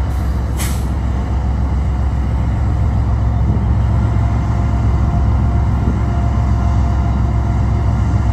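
BNSF freight train giving a loud, steady low rumble, with one short hiss about half a second in.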